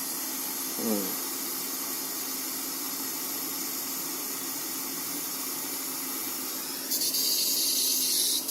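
Butane soldering iron hissing steadily as gas flows to its glowing catalytic tip. About seven seconds in, the hiss turns suddenly louder and brighter as the gas is turned up to full.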